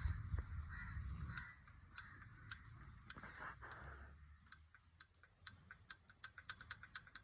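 Mahindra Xylo engine's valve train ticking: a run of sharp metallic ticks that come faster toward the end. The mechanic traces this noise to play in a rocker's lash adjuster.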